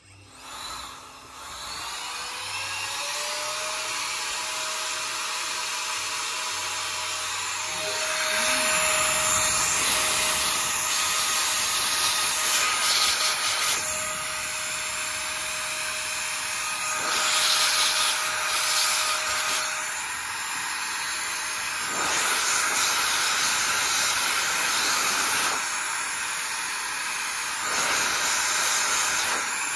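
Handheld electric air blower (air duster) spinning up with a rising whine, then running with a loud steady rush of air that swells and drops several times as it is aimed over the disassembled knife parts.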